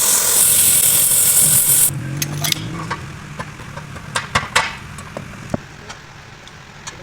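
A loud, steady hiss cuts off sharply about two seconds in. It is followed by scattered metallic clinks and knocks of tools and parts in a truck repair workshop.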